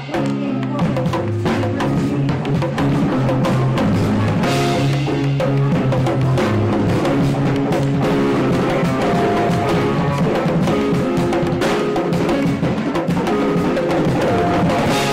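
Live band music without vocals: keyboard chords and low bass notes held and changing over a drum beat.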